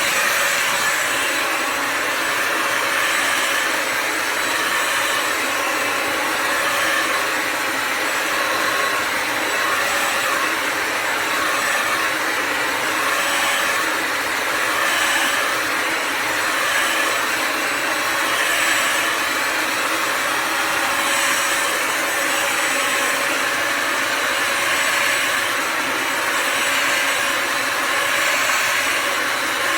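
Bissell Symphony Pet vacuum and steam mop running steadily: the whine and rush of its vacuum motor, swelling slightly every few seconds.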